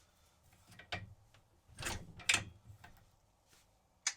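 Several separate short knocks and clicks of metal motorcycle clutch parts being handled and fitted by hand, the loudest a pair about two seconds in and a sharp click near the end.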